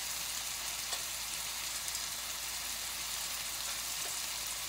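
Sliced onions and whole spices frying in oil in a pot: a steady sizzle, with a couple of faint small crackles about a second in and near the end.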